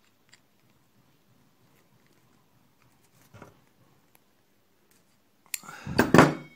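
Small parts being handled on a work surface: a few faint clicks, a light knock partway through, then a short, loud clatter of several sharp knocks near the end.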